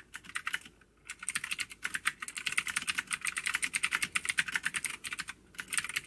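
Fast two-handed typing on a budget LED-backlit mechanical keyboard with clicky switches: a rapid, dense run of key clicks, with short pauses about a second in and near the end.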